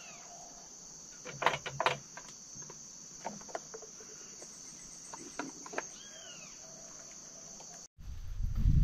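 Steady high-pitched insect chorus of the rainforest, with a couple of arching bird calls near the start and about six seconds in, and a few short sharp knocks around one and a half to two seconds. Near the end the sound drops out for an instant and gives way to louder low rumbling noise.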